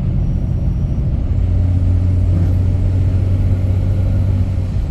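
Diesel truck engine droning steadily with the exhaust brake engaged, the low drone growing stronger about a second in.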